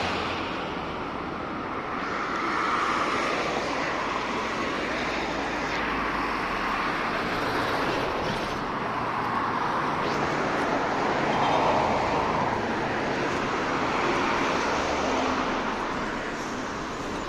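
Route bus under way, heard from on board: steady engine and road noise.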